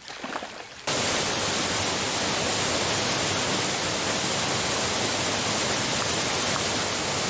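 Steady rush of a waterfall, a constant roar of falling water that starts abruptly about a second in.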